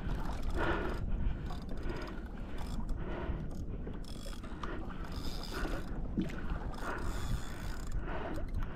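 Fishing reel clicking rapidly and unevenly while a hooked tuna pulls on the line, over a steady low rumble.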